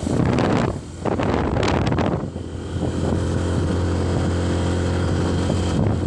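Vehicle engine running steadily, with wind gusting over the microphone during the first two seconds.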